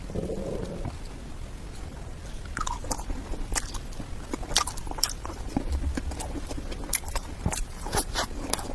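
Close-up eating of cake: biting and chewing, with many sharp, irregular wet mouth clicks and smacks.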